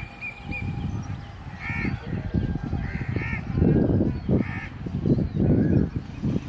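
Crows cawing several times, about a second or so apart, over a low, gusty rumble.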